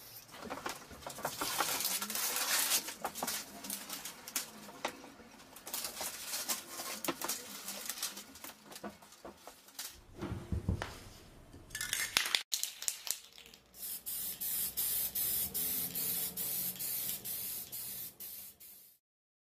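Aerosol spray paint can hissing in repeated bursts, with handling clicks. After a break about ten seconds in, a steadier hiss over a low hum follows and cuts off abruptly near the end.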